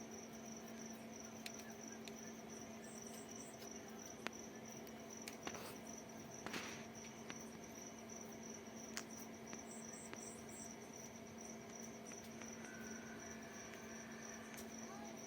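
Faint, steady chirping of a cricket, with a low steady hum underneath and a few scattered clicks.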